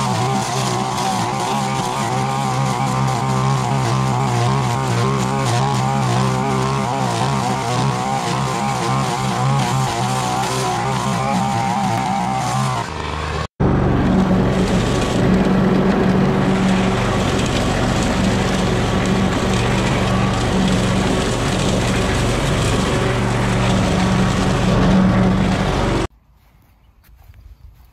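A line trimmer running at steady high speed while cutting a clump of tall grass. About halfway through there is a sudden cut to a petrol push mower running steadily as it mows, and near the end the engine noise drops away to faint background sound.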